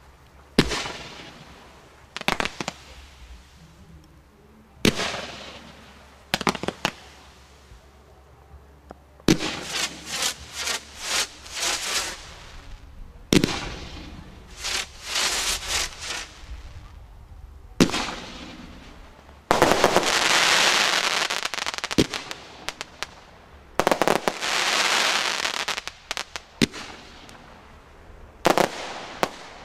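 Consumer firework battery (cake) firing in a series of volleys: sharp launch bangs, singly and in quick clusters, each trailing off into hissing, with pauses between groups. About two-thirds of the way through come two longer stretches of dense, continuous hissing fire.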